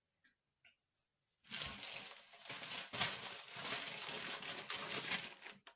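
Plastic packaging crinkling and rustling as it is handled. It starts about a second and a half in and lasts about four seconds, before a faint high steady whine.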